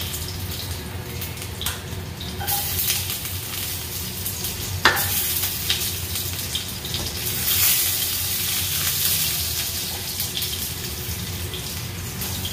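Garlic sizzling and crackling in hot olive oil in a nonstick skillet, with one sharp knock about five seconds in and a spatula stirring near the end.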